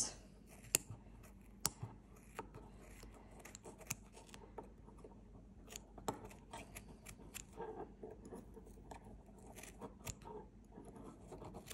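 Scissors snipping through wrapped acrylic DK yarn loops on a fork, cutting the loops to make a pom-pom. The snips come as a run of quiet, irregular clicks.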